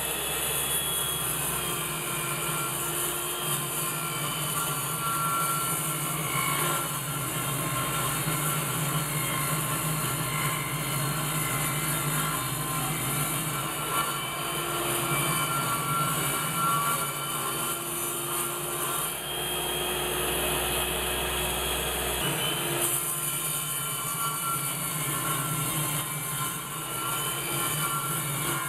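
Table saw running steadily while ripping sheets of plywood and laminated particle board.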